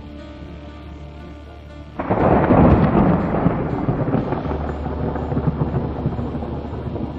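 A thunderclap breaks out suddenly about two seconds in, crackling at first and then rolling on, slowly fading.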